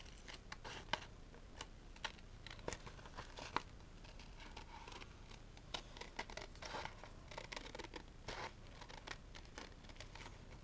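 Scissors cutting through printed tissue paper backed by copy paper: a string of short, irregular snips.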